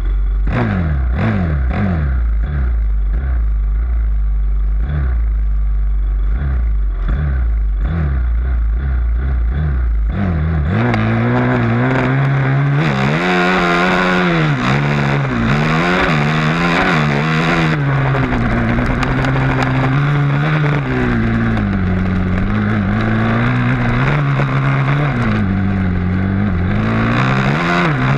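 Dirt bike engine heard from an onboard camera. For about the first ten seconds it idles with quick throttle blips. About ten seconds in it revs hard and runs up and down through the gears, with wind rushing over the microphone.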